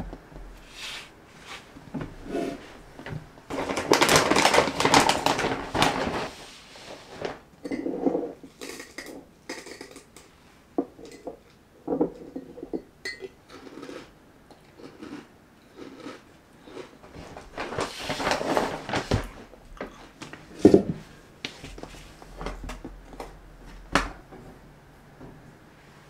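Marshmallow cereal poured from a plastic bag into a glass mug of milk, rattling for about two seconds, with a second burst of pouring and bag rustling later on. Between them, a metal spoon clinks and taps against the glass mug.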